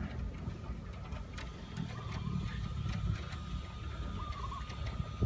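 Footsteps and scattered sharp clicks and knocks on the wooden planks of a swaying suspension bridge, over a low rumble. A faint short call repeats about every two seconds.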